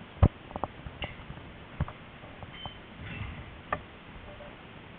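Tram rolling slowly over its rails: irregular wheel clicks and knocks, the loudest about a quarter second in, with a few short high squeaks.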